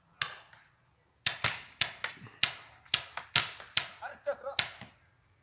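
Paintball markers firing: about a dozen sharp pops in an uneven string, some in quick succession. A faint voice is heard partway through.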